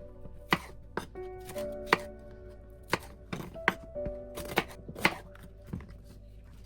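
Knife chopping food on a cutting board: sharp, separate strokes at an uneven pace, roughly one or two a second, over soft background music with held notes.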